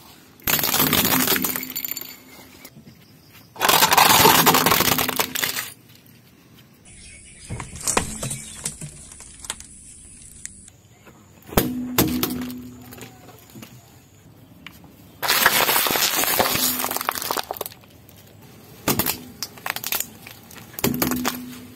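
A car tyre rolling over and crushing a series of small plastic objects: capsules, a drink pouch and a plastic toy car. There are several loud stretches of crackling and crunching, each lasting a couple of seconds, with a few sharp single cracks between them.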